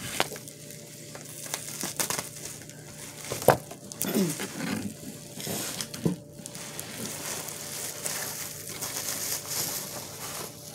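Packaging rustling and crinkling — bubble wrap and cardboard handled as a wrapped item is lifted out of a shipping box — with scattered light clicks and one sharp knock about three and a half seconds in.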